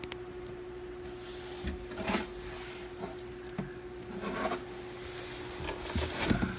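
Cardboard shipping box being opened by hand, flaps pushed back and packaged items inside shifted: a few brief rustles and soft knocks, the last and loudest near the end, over a steady faint hum.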